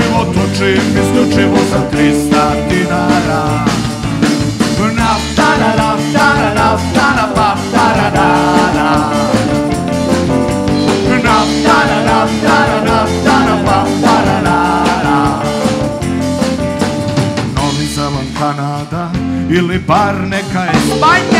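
Live pop-rock band playing: electric guitar, bass guitar, drum kit, hand percussion and keyboard, with a male voice singing lead.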